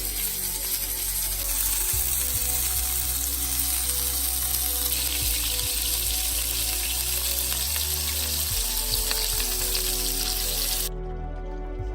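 Food sizzling as it fries in a pan of garlic butter and duck fat, a steady hiss that cuts off suddenly near the end.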